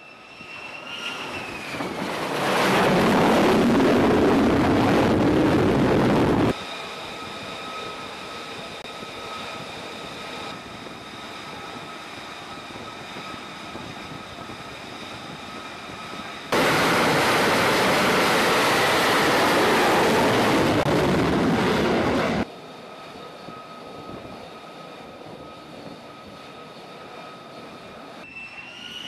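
F-35C Lightning II jet engine noise on an aircraft carrier flight deck: a steady high-pitched turbine whine, broken twice by several seconds of loud full jet blast that cut off abruptly. A falling whine is heard about a second in and again at the very end.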